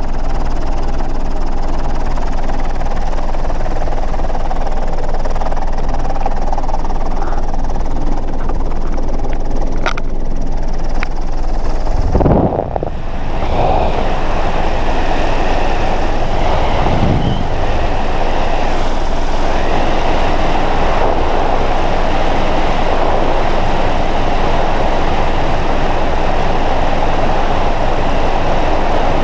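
Jump aircraft's engine droning steadily inside the cabin. About twelve seconds in, a sudden surge of rushing wind as the door is opened, after which loud wind rush mixes with the engine drone.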